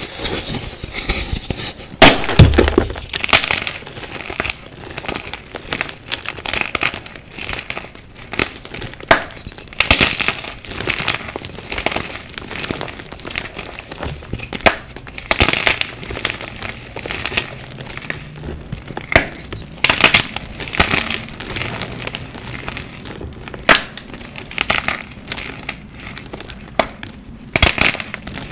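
Blocks of dyed gym chalk being crushed and crumbled by hand: a run of crisp cracks and crunches with powdery crumbling between, the loudest snap about two seconds in.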